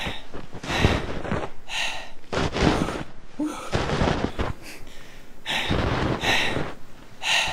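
A man breathing hard and grunting with effort, one heavy breath roughly every second.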